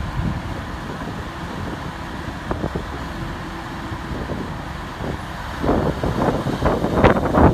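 Komatsu PC78US-8 compact excavator's diesel engine running with a steady low rumble. About five and a half seconds in it gets louder and rougher, with rapid knocking and clatter.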